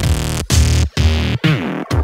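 Electronic dance music with a heavy bass beat and falling synth sweeps, chopped into short stuttering pieces by brief gaps about twice a second.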